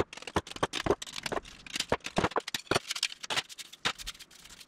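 Quick, irregular metallic clicks and taps, several a second, from hand tools working an aluminum aircraft bulkhead part.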